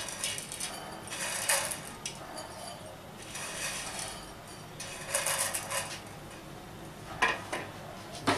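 Crisp fried noodles rustling and crackling as they are handled and dropped from a plate into a glass bowl, in several separate bursts. Two sharp clinks of crockery near the end.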